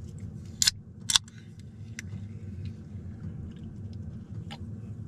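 Diesel heater running on low, a steady low hum. Two sharp clicks about half a second apart come near the start, with fainter ticks later.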